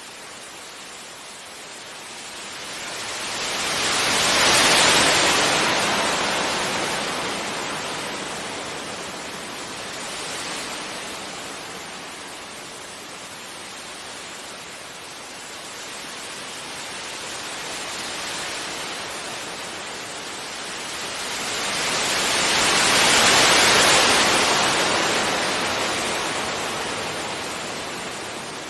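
Gentle sea waves breaking on a beach and washing back. Two larger waves swell up and break, one about five seconds in and one near the end, with smaller surges between.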